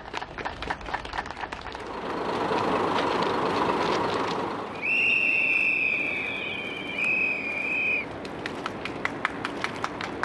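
Kamioka Railway KM-100 diesel railcar sounding its horn: a long steady blast of about two seconds, then a shorter one. Before it, a crowd applauding and cheering; scattered claps follow.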